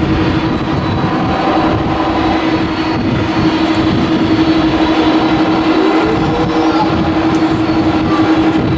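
Airbus A321's IAE V2500 turbofan engines running at idle as the airliner taxis: steady engine noise with a constant droning hum, and a short rising whine about six seconds in.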